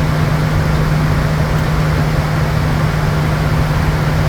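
Steady drone heard from inside a Bombardier Challenger 350 business jet in flight: rushing airflow and engine noise under a steady low hum.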